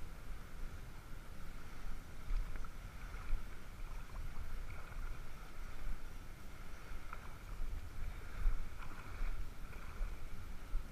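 Wind rumbling on the microphone over open water, with a faint steady mid-pitched hum behind it and a few light ticks.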